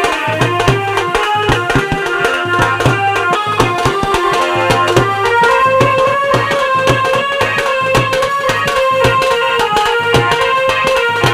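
Instrumental ringtone tune: a melody over a steady, repeating drum beat, the melody moving up higher about five seconds in.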